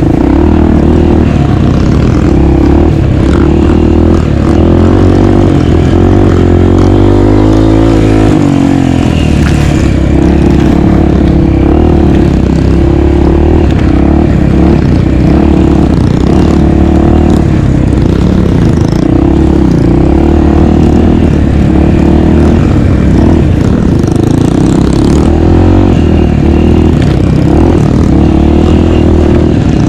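A 250 cc enduro dirt bike running loud under riding, its engine note rising and falling with the throttle, with a marked pitch sweep about seven to nine seconds in.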